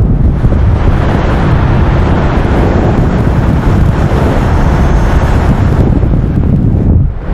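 Airstream of a car at about 50 mph rushing over a stereo microphone held out the window in a Persian cat hair windscreen: a loud, steady rush heaviest in the low end, mixed with the car's road noise. It drops sharply about seven seconds in.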